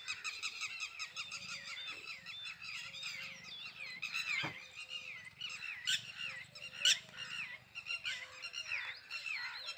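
Many small birds chirping at once: rapid, overlapping high-pitched notes without a break, with a few louder sharp calls about six and seven seconds in.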